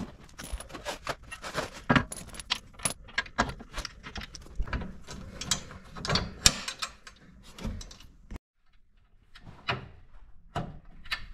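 Metal clinking and knocking as steel pins are pushed through the plow push-tube mount brackets and hairpin safety clips are fitted. Dense sharp clicks, a few of them loud, stop suddenly about eight seconds in, then a few more clinks follow.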